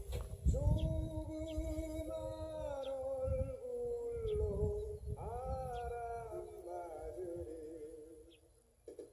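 Cat yowling in long, drawn-out wavering calls, a few in a row, the hostile warning yowl of a cat squaring off for a fight with a dog. The calls fade out near the end.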